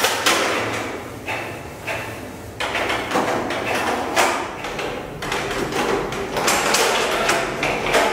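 Inkjet printers at work: paper feed and print-head carriage whirring in short passes that start and stop sharply, with clicks between them.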